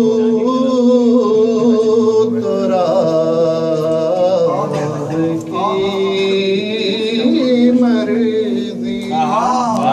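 A man singing an Urdu devotional poem (manqabat) in a slow, drawn-out chant, holding long notes with wavering turns in pitch over a steady low drone.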